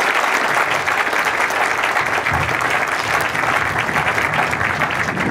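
Audience applauding: steady, dense clapping of many hands.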